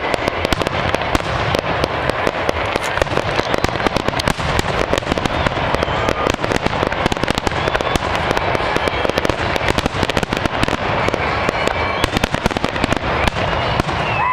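Aerial fireworks shells bursting in quick succession: a dense, unbroken run of bangs and crackles.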